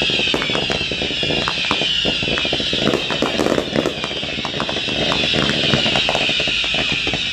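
Fireworks crackling and popping in quick irregular bursts over a steady high-pitched hiss, with a crowd's voices mixed in underneath.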